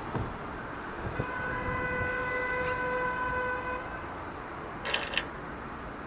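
A vehicle horn held in one steady tone for about two and a half seconds over the steady noise of passing city traffic. Near the end comes a brief double burst of hiss.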